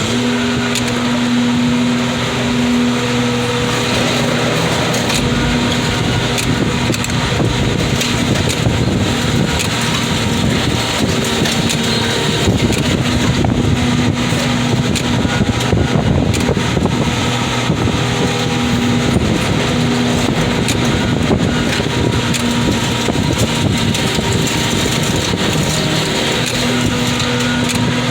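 Car crusher's engine and hydraulics running through a jog crush cycle that rocks the bundle, a steady drone with a hum that swells and fades every few seconds as the cycle works.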